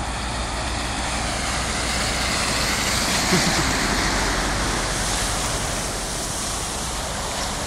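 A road vehicle driving past through floodwater, the hiss of its wheels in the water swelling to a peak about three to four seconds in and then fading.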